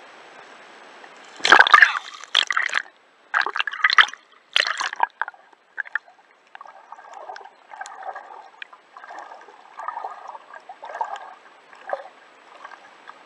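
Water splashing and gurgling around an underwater camera: a few loud, sharp sloshes over the first few seconds, then softer, choppy gurgling.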